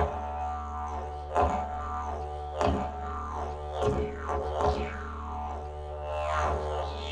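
Didgeridoo playing a steady low drone, with accented pulses every second or so whose overtones sweep downward.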